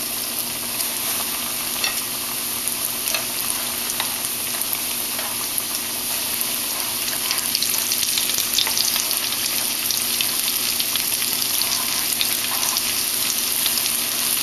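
Flour-coated chicken pieces deep-frying in hot oil: a steady crackling sizzle with many fine pops, growing a little louder about halfway through.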